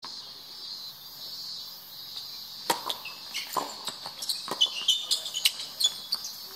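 Tennis balls popping off rackets and bouncing on a hard court during a doubles rally: sharp hits begin about two and a half seconds in and come roughly once a second. Insects drone steadily and high-pitched underneath throughout, with short chirps between the hits.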